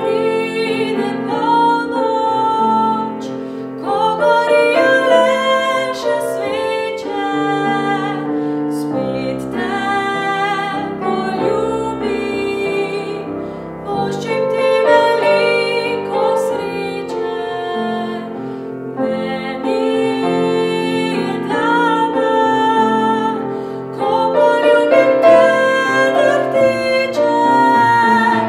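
A woman singing with grand piano accompaniment. Her sung phrases waver in pitch over sustained piano chords.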